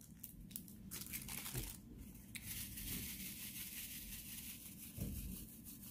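Faint rustling patter of small plastic square diamond-painting drills shaken and sliding in a plastic sorting tray, with a few light clicks at first.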